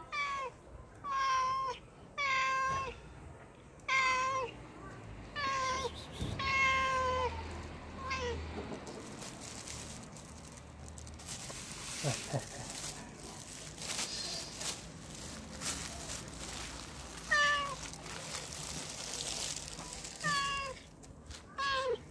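Domestic tabby cat meowing over and over, a run of about seven insistent meows that each drop in pitch at the end, begging for fish. Then a plastic bag rustles and crinkles for several seconds, and three more meows come near the end.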